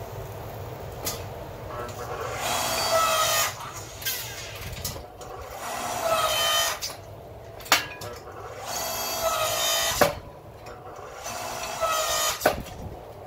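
Electric motor and hydraulic pump of a small 4-to-5-ton electric log splitter used as a forge press, whining in four separate runs about three seconds apart as the ram is worked against a hot billet to forge-weld it. A few sharp clicks or knocks come between the runs.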